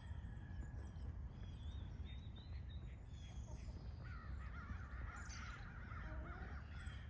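Birds calling outdoors: scattered high chirps and short calls, busier about two-thirds of the way through, over a steady low rumble.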